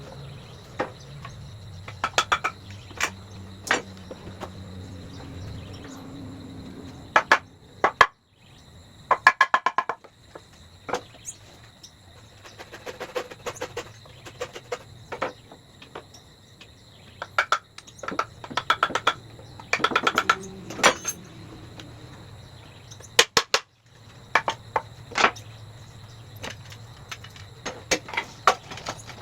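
Irregular sharp knocks and taps from hand work while assembling a wooden table leg, some single, some in quick runs of several strokes, over a steady low hum.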